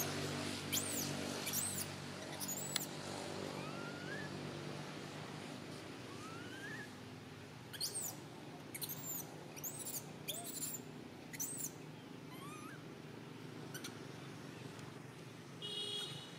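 Baby macaque screaming in short, shrill, arching cries: a run of about four in the first three seconds, then another run of about five from about eight seconds in.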